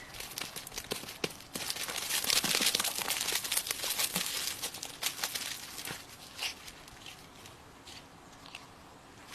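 Crinkling and rustling, dense with small crackles from about a second and a half in to about six seconds, then thinning to faint scattered clicks.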